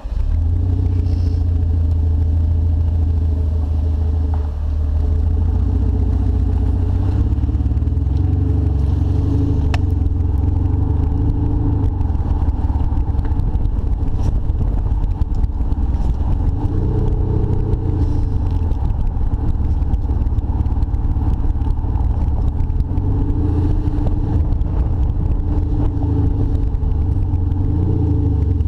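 Audi A6 allroad 3.0 BiTDI with a Kufatec Sound Booster Pro, heard at the rear: a deep, loud engine note that comes on suddenly and then rises and falls in pitch several times as the car pulls away and is driven slowly.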